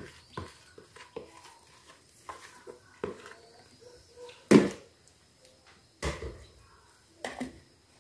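Kitchen clatter from cookware and utensils being handled: a string of light knocks and clicks, with one loud thump about four and a half seconds in and two more knocks later.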